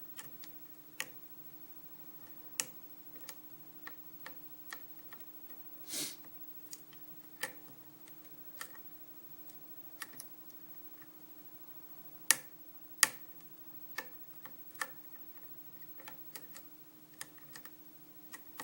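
Irregular small metallic clicks and taps of a lock pick working the pin stack of a 6-pin Arrow lock under a Z-bar tension wrench: single-pin picking, feeling each pin for binding and feedback. Two sharper clicks stand out a little past the middle.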